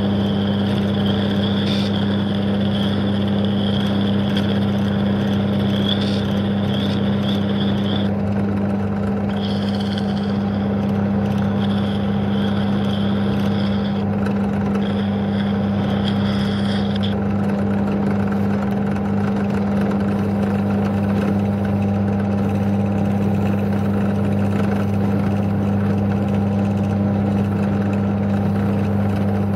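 Pedestal drill motor running with a steady low hum as it spins a motorbike exhaust valve. An old chisel held against the spinning valve scrapes off carbon build-up with a high-pitched whine that breaks off a few times and stops about seventeen seconds in.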